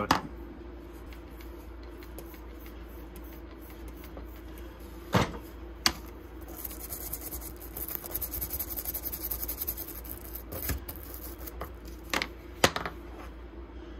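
Small stiff-bristled hand brush scrubbing dirt off a stubby screwdriver wet with a water and Simple Green cleaner, heard as a rapid scratching from about six to eleven seconds in. A few sharp knocks come from tools being handled on the bench, over a steady low hum.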